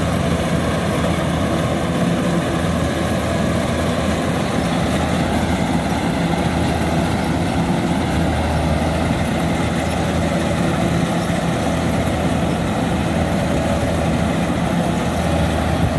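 Kubota DC-93 rice combine harvester running steadily, its diesel engine giving a low, even drone as the tracked machine works bogged down in deep mud.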